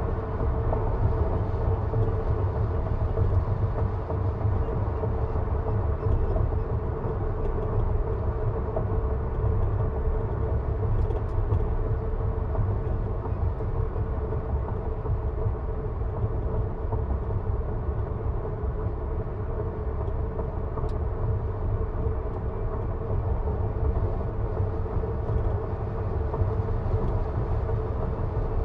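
Road noise from a Tesla Model 3 Performance, an electric car, driving at steady speed on a paved mountain road: a steady low rumble of tyres on asphalt with a faint even hum.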